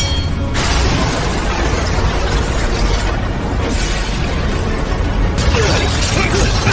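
Loud cinematic soundtrack music with a heavy low rumble and dense crashing sound effects.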